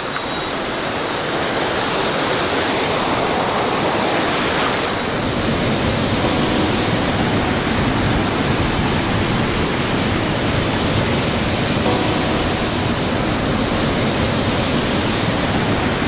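Steady rush of falling water from a small waterfall on a mountain stream, with a slight change in tone about five seconds in.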